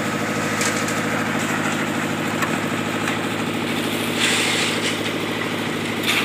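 Engine of a drum concrete mixer running steadily at a constant speed, with a brief rushing, scraping noise about four seconds in.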